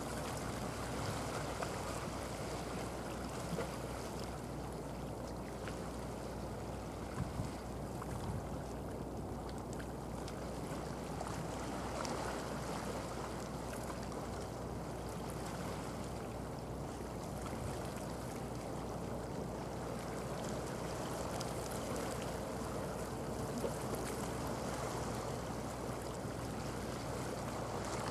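Steady wash of sea water and wind along the shore, with a low, steady engine drone from boats on the water underneath.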